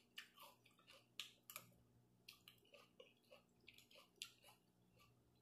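Faint mouth sounds of a person chewing a mouthful of sukiyaki noodles: irregular wet smacks and small clicks, several a second.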